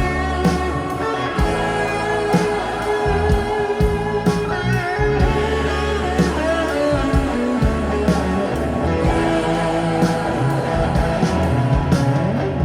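Rock music with guitar and some singing, played back through hi-fi loudspeakers and picked up by a room microphone.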